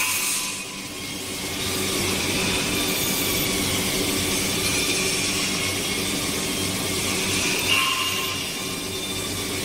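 Abrasive belt polishing head running against a metal tube: a steady grinding hiss over a low motor hum, with a brief squeal about eight seconds in.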